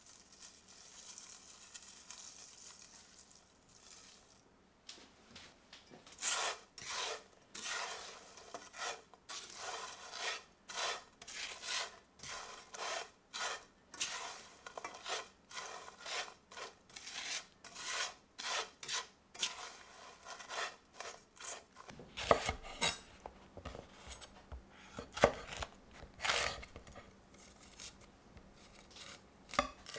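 Panko breadcrumbs pouring onto green beans in a black steel frying pan with a faint hiss. Then a utensil scrapes and tosses them around the pan in repeated quick strokes. Near the end, a knife knocks on a wooden chopping board while cutting a red chilli.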